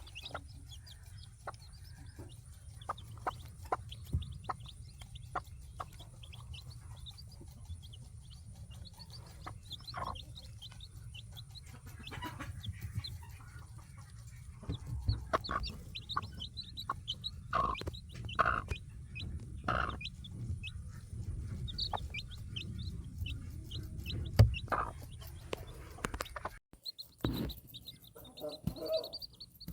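Baby chicks peeping in many short high chirps, with occasional louder clucking calls, over a low steady rumble.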